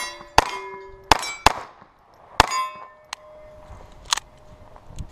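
Quick .22 LR shots from a Ruger rimfire pistol, about five in the first two and a half seconds, with the hit steel plates ringing after them. After that the firing mostly stops with only a few weaker cracks: the pistol has jammed with a double feed.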